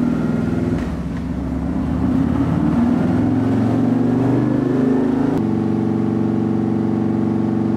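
Harley-Davidson Low Rider ST's Milwaukee-Eight 117 V-twin making a loud run on a chassis dyno through a Bassani 2-into-1 exhaust: engine speed climbs for about five seconds, then the engine runs at a steady pitch. This is a tuning pull to test a change to the ignition timing.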